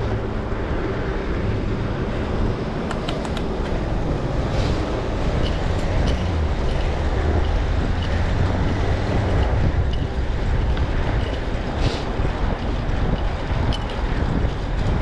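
A vehicle running steadily, with wind noise on the microphone and a few brief ticks.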